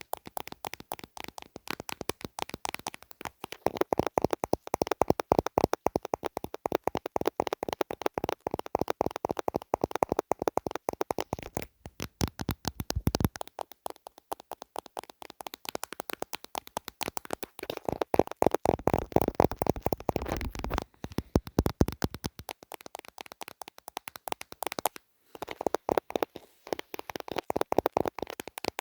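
Rapid, continuous ASMR tapping on a hard handheld object, the camera body or phone case being tapped, many small taps a second. Two spells of fuller, heavier tapping stand out, with short pauses in between.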